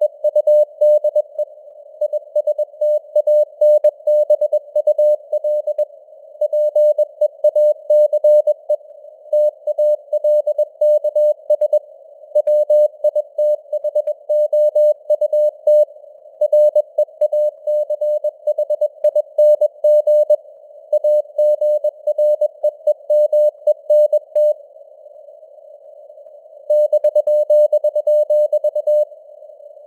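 Morse code sent at 21 words per minute: a single tone of about 600 Hz keyed on and off in dots and dashes over a narrow band of simulated radio hiss. Near the end the keying stops for about two seconds, leaving only the hiss, then resumes.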